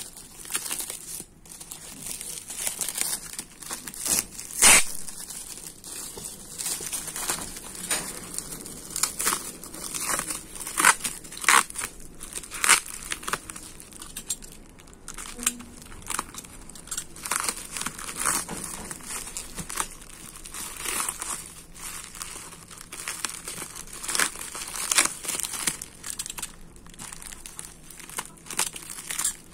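Delivery packaging being handled and torn open: irregular crinkling and rustling, with one sharp, louder crackle about five seconds in.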